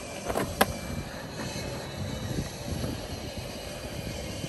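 Skateboard wheels rolling on the concrete of a skate pool, a steady low rumble, with two sharp clacks within the first second.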